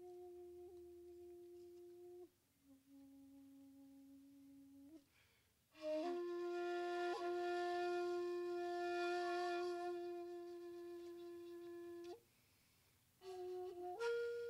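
Solo shakuhachi, the Japanese end-blown bamboo flute, playing slow, long-held notes with pauses between them. A steady note gives way to a quieter, lower one. About six seconds in, a loud, breathy note bends up into pitch and holds for several seconds, and after a second of silence the line comes back and steps up to a higher note near the end.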